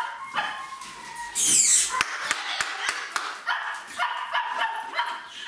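Dog whining and yelping in high-pitched whines, with a brief loud rushing noise about a second and a half in and a few sharp clicks just after it.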